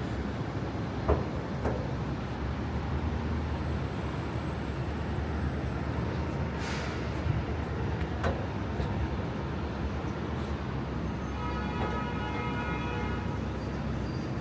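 Steady city traffic noise rising from the road below, with a few short knocks, and a pitched tone held for about two seconds near the end.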